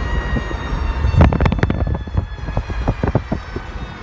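Drive whine from a 2002 Jeep Grand Cherokee while it is moving: a steady high-pitched whine with several overtones, falling slightly in pitch, over a low road and engine rumble. It is an intermittent drive noise that comes and goes and stops when the vehicle stops. From about a second in, a run of irregular sharp clicks and knocks sounds over it.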